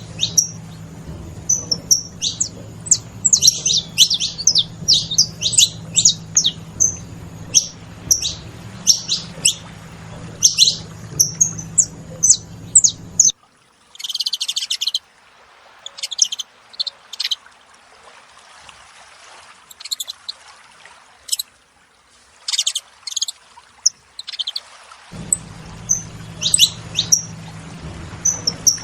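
Several saffron finches chirping: quick, short, high calls, one after another. The calls come thick and fast at first, thin out to scattered chirps for about ten seconds in the middle, then grow busy again near the end.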